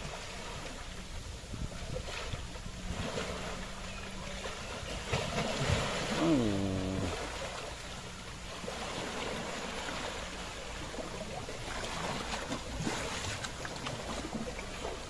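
Water sloshing and splashing as Asian elephants wade and wallow in a muddy pond. About six seconds in, a single call drops in pitch over about a second.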